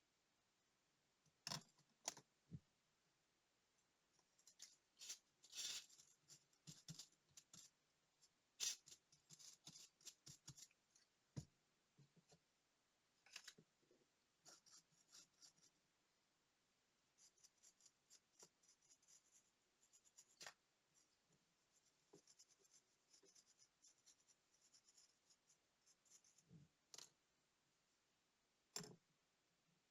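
Faint, irregular small clicks and short scrapes of fine hand tools handling the small parts of a digital watch during disassembly and cleaning.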